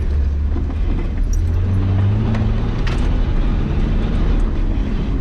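Nissan Patrol Y60's engine pulling under load, its pitch rising over the first two seconds and then holding steady, with a few short knocks in the middle.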